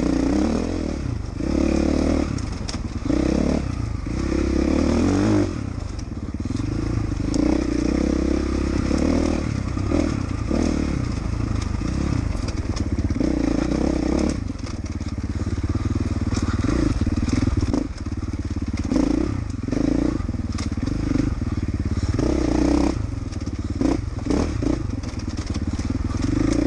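Dirt bike engine revving up and dropping back again and again as the rider works the throttle along a rough trail.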